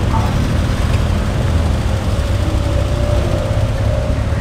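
Mini Moke's small car engine running steadily at low revs, a low rumble with no revving as it rolls slowly past.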